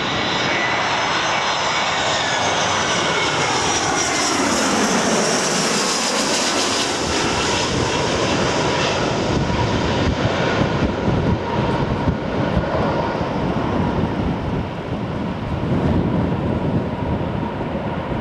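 Airbus A320-214 jet engines (CFM56) passing close by on landing. Their whine sweeps down in pitch a few seconds in as the aircraft goes past, then gives way to a loud, rough jet rumble.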